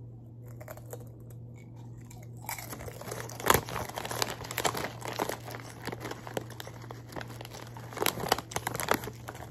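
Foil potato-chip bag crinkling and crackling as a hand reaches in and rummages for chips, starting about two and a half seconds in after a quieter stretch of faint chewing.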